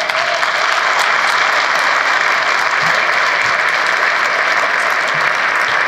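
Large audience of party-convention delegates applauding steadily.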